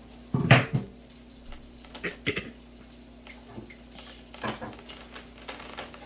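Kitchen clatter of dishes and utensils being handled: a loud knock about half a second in, then several lighter knocks, over a steady low hum.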